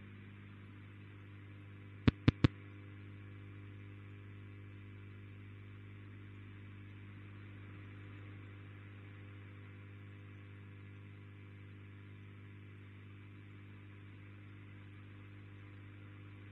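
Shortwave radio dead air between transmissions: faint receiver hiss with a low steady hum, and three quick sharp clicks about two seconds in.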